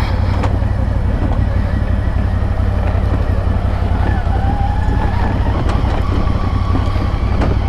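ATV engine running steadily while riding along a trail, with the rumble of the machine over the ground.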